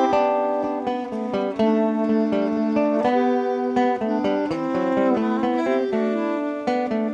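Live instrumental folk tune on clarinet, fiddle and acoustic guitar: the guitar strums a steady rhythm under a melody of held notes from the clarinet and fiddle.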